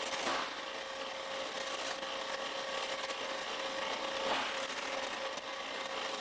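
Produce increment cutter running, a steady machine hum and hiss, with two brief louder swishes, one just after the start and one about four seconds in.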